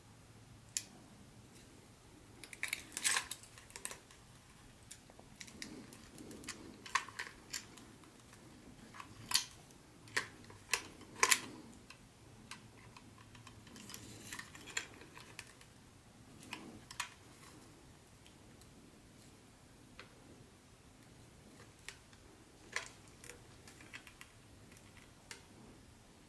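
Irregular light clicks and short rustles of small plastic parts and packaging being handled, a few sharper clicks standing out among quieter ones.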